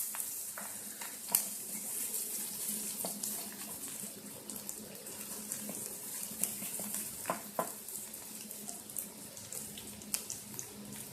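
Chopped onions sizzling in hot oil in a pan, a steady hiss with small crackles as they roast toward golden brown, broken by a few sharper clicks.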